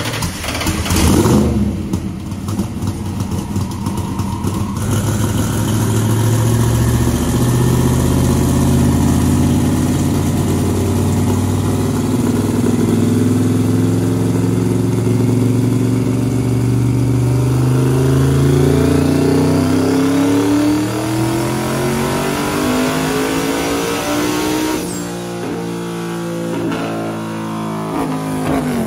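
Twin-turbo LSX-block V8 of a C5 Corvette drag car making a full-throttle pull on a chassis dyno, on about 9 pounds of boost. A short rev blip about a second in, then the engine note climbs slowly and then more steeply for around twenty seconds before the revs drop away, leaving the engine running lower near the end.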